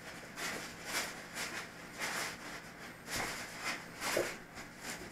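Plastic wrap crinkling and a foam packing tray rustling as a wrapped part is handled and lifted out, in a string of short irregular rustles.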